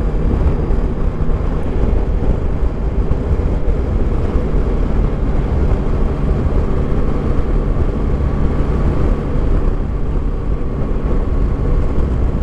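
Yamaha Tracer 9 GT's 890 cc three-cylinder engine running steadily at cruising speed, heard through heavy wind rumble on a helmet-mounted camera.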